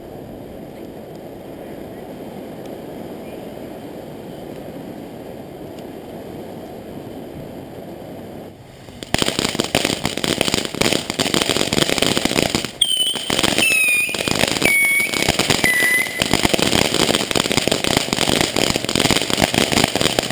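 TNT Spiral Lite consumer firework going off: a steady low hiss for about nine seconds, then a sudden jump to loud, dense crackling that carries on to near the end, with several short falling whistles partway through.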